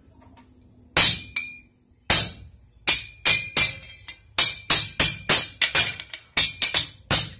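Hammer blows on a steel hand punch, driving it through copper sheet to punch the centre hole of a copper rose bloom: about a dozen sharp metallic strikes, each with a brief ring. The first comes about a second in, and they quicken to about three a second.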